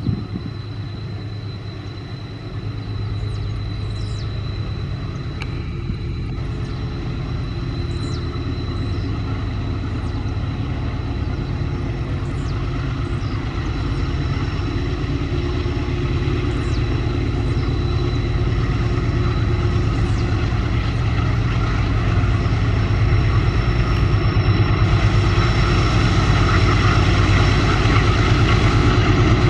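Diesel-electric locomotives of a loaded iron-ore train working hard up a grade: a steady, heavy engine rumble that grows steadily louder.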